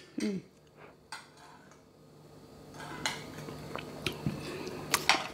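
Small ceramic teacup set down on the table with a sharp clink near the end, after a few quieter clinks of tableware.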